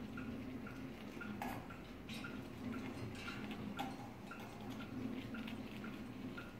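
Omega Seamaster Planet Ocean chronograph's mechanical calibre 9901 movement ticking in a quick, even rhythm, with a few soft knocks and rustles as the watch and its leather strap are handled.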